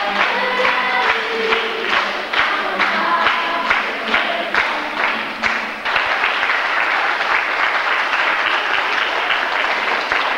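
A group singing while the audience claps along in time, about two claps a second; about six seconds in the song stops and the room breaks into applause.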